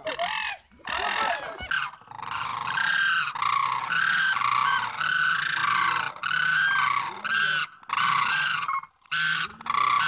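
Cranes calling: a rapid series of loud, pitched calls, each under a second long with brief gaps, starting about two seconds in.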